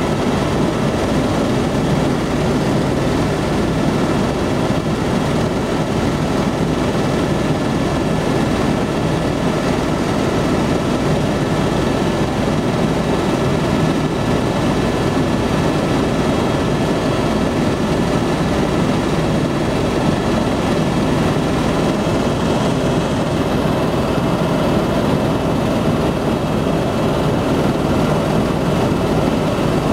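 Helicopter in flight heard from inside the cabin: a steady, loud engine and rotor drone with a regular low rotor beat and a faint steady whine over it.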